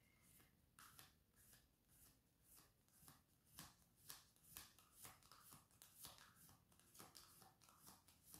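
Tarot cards being shuffled by hand: faint soft card flicks, about two a second.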